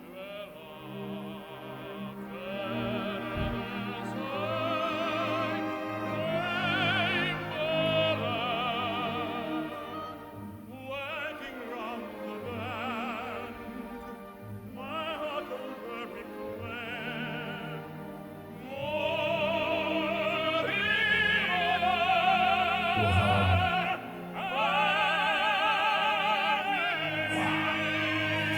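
Operatic tenor singing with wide vibrato over a full orchestra, swelling louder about two-thirds of the way through into long held high notes.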